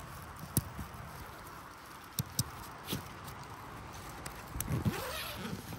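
Footsteps crunching over dry pine needles, with the scrape and rustle of a canvas tent bag being grabbed by its handle and carried, and a few sharp knocks from the bag and its straps. A steady hiss of wind in the pines runs underneath.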